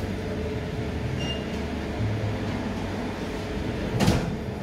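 Steady low hum of café background while chai is sipped from a china cup, with one short, louder noise about four seconds in as the cup is lowered.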